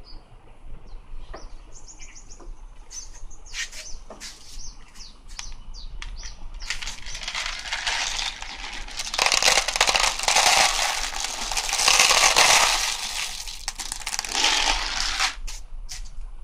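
Dry cat kibble rattling in a clear plastic jar and pouring into a plastic pet bowl: a dense rattle that builds from about halfway through, is loudest for several seconds, then fades out near the end. Scattered short clicks and ticks come before it.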